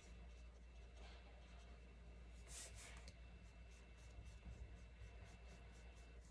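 Faint strokes of a paintbrush on paper, repeated, with one longer, louder stroke about two and a half seconds in, over a low steady hum.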